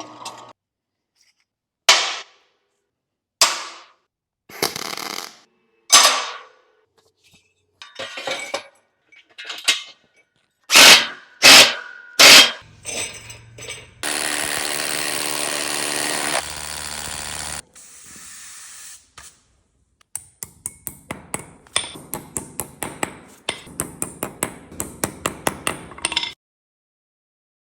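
Metal tool work on a steel welding fixture table: a series of sharp, ringing metal strikes, then a few seconds of steady noise, then a quick run of light clicks at about four a second.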